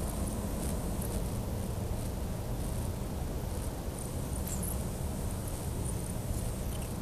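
Steady low rumble with a faint hum in the night air, the kind the recordist calls vibrations and rumbling in the sky, with faint scattered high ticks above it.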